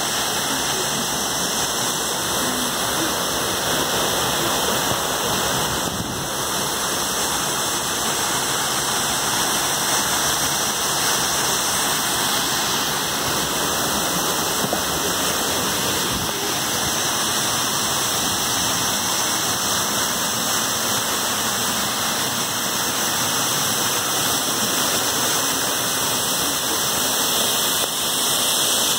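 Waterfall spilling down a rock face and splashing into a shallow pool at its base: a steady, unbroken rushing hiss.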